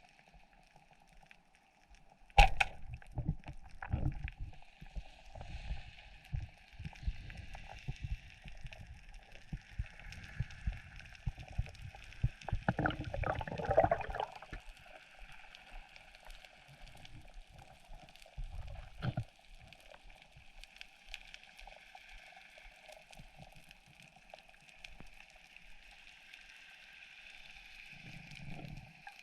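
Underwater sound picked up by a spearfisher's diving camera: irregular dull knocks and gurgling, busiest in the first half, over a faint steady hiss.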